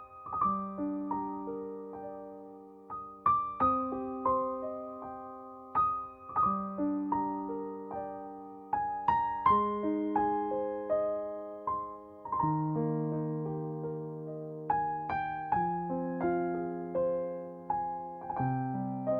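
Background music: a slow, gentle piano melody over sustained chords.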